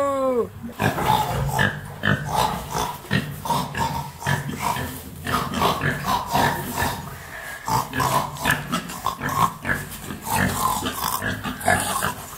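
A cow's moo tails off in the first half second. Then pigs grunt in a rapid, continuous run of short grunts.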